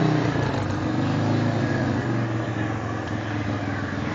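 Small engine of a racing lawn mower running steadily at idle.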